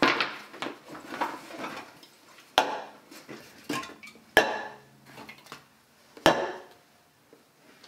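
A folding wheelchair being taken apart on asphalt: metal clanks and clatters as the wheels are pulled off and set down, with a rattle at the start and a series of sharp knocks, the loudest about two and a half, four and a half and six seconds in.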